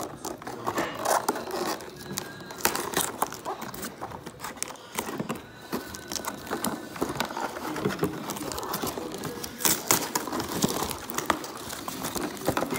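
Handling noise: plastic toy packaging crinkling, with irregular clicks and taps as the toy is handled.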